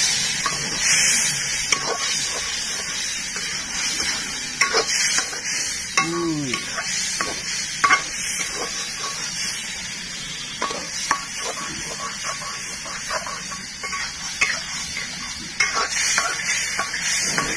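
Bamboo shoots and chilli stir-frying in a hot pan: a steady sizzle, with a spatula stirring and scraping and tapping against the pan many times.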